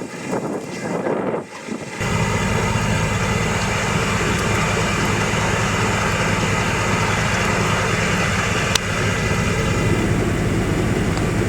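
Steady noise of a vehicle on the move: a continuous low hum under a rushing hiss, starting abruptly about two seconds in after a short stretch of uneven noise.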